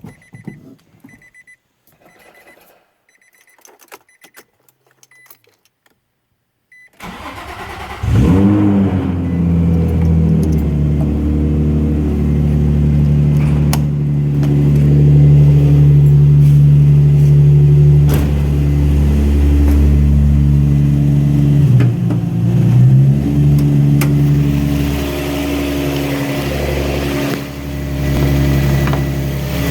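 Infiniti G35's 3.5-litre VQ35 V6 being started about seven seconds in, after a few seconds of faint clicks and beeps; it catches, flares up and settles into a steady idle. The owner hears a ticking/knocking noise from this engine whose cause he does not know.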